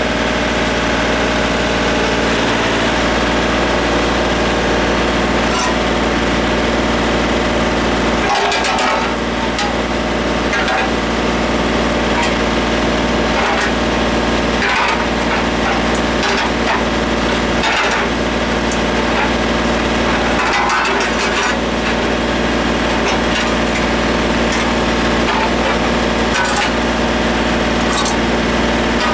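Tractor engine running steadily under load, with scattered cracks and creaks as tires are forced off their rims.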